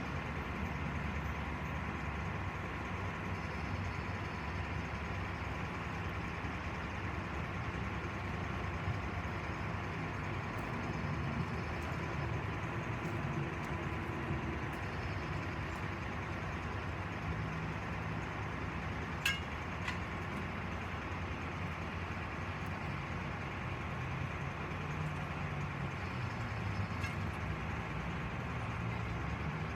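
A vehicle engine running steadily with a low rumble, and a single sharp click about nineteen seconds in.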